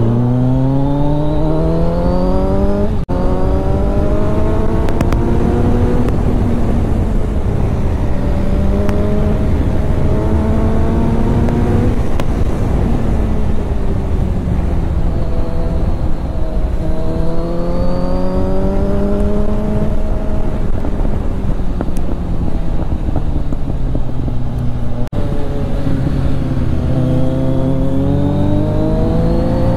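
Kawasaki Z900's inline-four engine and exhaust heard from the rider's seat, revving up hard under acceleration and falling away as the rider rolls off, several times over, with a couple of brief breaks in the note as it shifts. Steady wind rush sits underneath.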